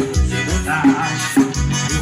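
Latin-style dance music with a heavy, punchy bass beat, played loud through a home-built 'caixa bob' sound system with a 15-inch subwoofer and two 8-inch midrange speakers.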